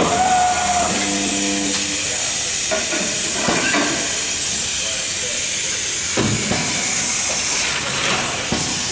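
Corghi tire changer at work: a steady hiss of air, with a short machine whine in the first couple of seconds and a few knocks as the wheel lifter raises the wheel.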